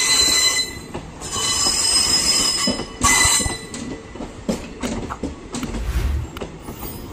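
Indian Railways passenger coaches being pushed back slowly during shunting, their steel wheels squealing high-pitched in three bursts over the first three and a half seconds. After that the wheels click over the rail joints.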